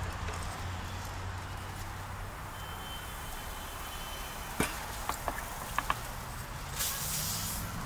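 Street ambience: a steady low traffic rumble, with a handful of sharp clicks a little past the middle and a short hiss near the end.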